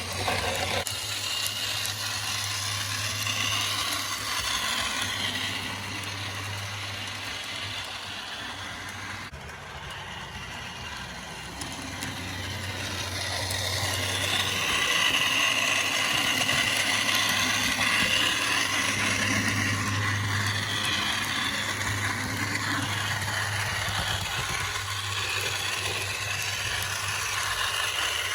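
HO scale Bachmann Spectrum Fairbanks-Morse H16-44 model diesel locomotive running on track: a steady motor whir with wheels rattling over the rails. It grows fainter, then louder again about halfway through, as the model moves farther off and comes back.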